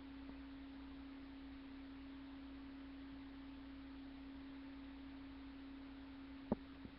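A steady, faint electrical tone with a low hum beneath it, held at one pitch throughout: interference in the webcam's audio. Near the end, one sharp click of K'Nex plastic pieces being snapped together.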